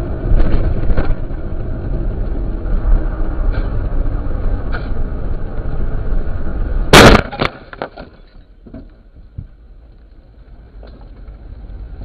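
Car driving with a steady low road and engine rumble, then one loud collision impact about seven seconds in, after which the rumble drops away to quiet with a few small knocks.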